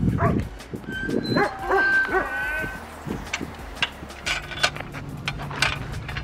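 Dogs whining and yipping in high calls, one of them drawn out for over a second, fading after about three seconds to scattered clicks.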